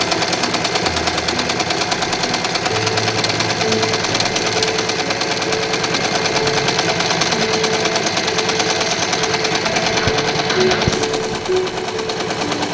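Usha Janome Allure domestic sewing machine running steadily at speed, its needle stitching fast and evenly. It is sewing two layers of fabric with a gathering foot, gathering the lower layer as it goes.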